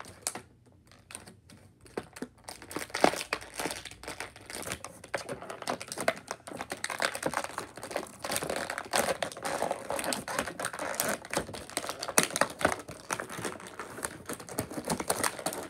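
Plastic action-figure packaging crinkling and crackling as it is handled and pulled apart, a dense run of irregular clicks and rustles that starts about two seconds in.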